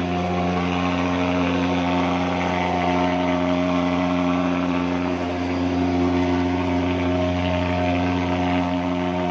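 Portable pulse-jet thermal fogging machine running steadily while spraying insecticide fog, giving a continuous, even-pitched drone with many overtones.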